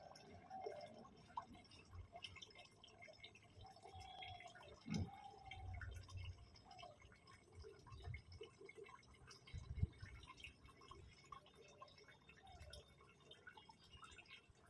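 Near silence: faint background ambience with scattered small ticks and two soft low thumps, about five and about ten seconds in.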